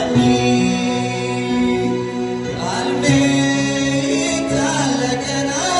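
A man sings a Kunama gospel song (mezmur) through a microphone, over an accompaniment of long held notes.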